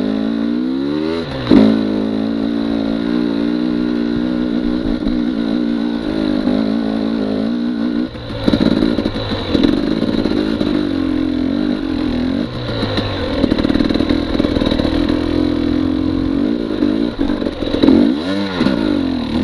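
KTM 250 XC TPI two-stroke dirt bike engine pulling away and riding a rough trail, its revs rising and falling with the throttle. A sharp burst of revs comes about a second and a half in. The revs dip briefly near eight seconds, then the engine picks up again, with another rev rise and fall near the end.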